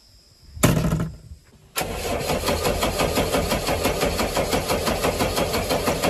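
JCB backhoe loader's diesel engine being started: a short burst about half a second in, then from nearly two seconds in the engine turns over and runs with an even, rapid pulsing clatter.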